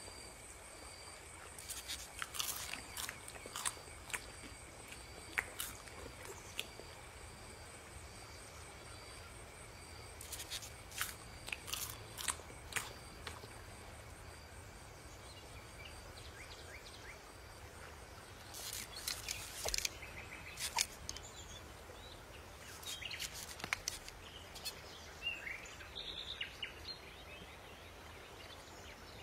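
Quiet outdoor nature ambience: a steady faint high chirring with a pulsing tone, scattered crisp crunches and clicks, and a few bird chirps near the end.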